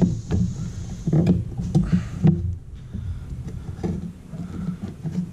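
Handling noise as a wiper motor is worked by hand into a rubber cowl gasket: irregular knocks, clicks and rubbing of the motor housing against the rubber.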